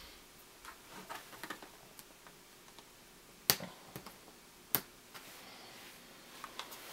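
Small clicks and scrapes of a flat screwdriver prying rubber screw-cover bumpers off a laptop's plastic screen bezel, with two sharp clicks about a second apart near the middle.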